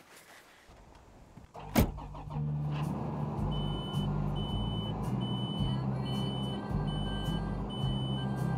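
A sharp clack, then a tractor's diesel engine starting up and idling, heard from inside the cab. Over the idle, a short high warning beep repeats about every two-thirds of a second, six or seven times.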